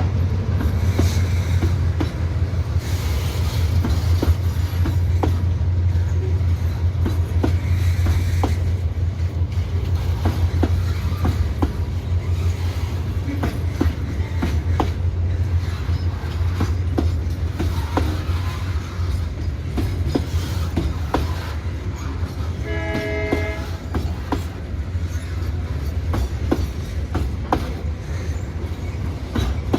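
Loaded freight train passing: the low rumble of two GE U20C diesel locomotives, heavier in the first half, then loaded cement hopper wagons rolling by with wheels clacking over rail joints. A brief pitched note sounds about three-quarters of the way through.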